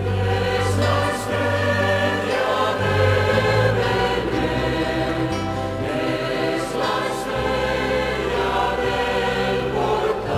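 Choral music: voices singing a slow, hymn-like piece over held low notes that change every couple of seconds.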